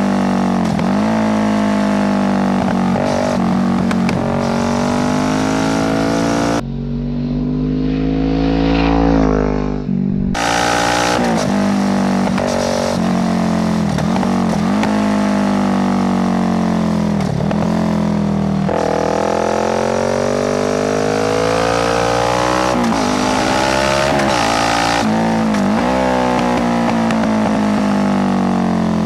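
Kawasaki Z650 parallel-twin engine through a full Ixil exhaust with no dB killer, accelerating hard through the gears. The pitch climbs and drops sharply at each upshift, over and over. For a few seconds in the first third the sound turns muffled and deep.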